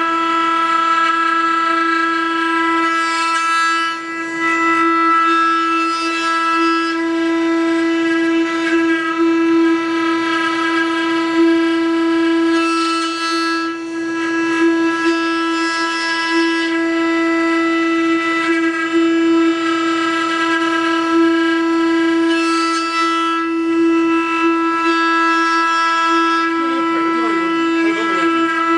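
Spindle motors of a multi-head four-axis CNC wood router running at constant speed with a steady high-pitched whine, while the bits carve rotating wooden balusters and add a rushing hiss that comes and goes every few seconds.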